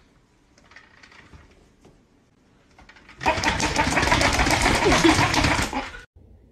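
Loud, rapid mechanical buzzing rattle. It starts about three seconds in and cuts off abruptly almost three seconds later, with faint rustling before it.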